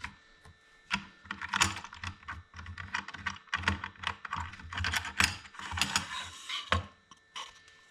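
An irregular run of small clicks and knocks, with a short scraping rush a little before the end, the sound of small objects being handled on a hard surface.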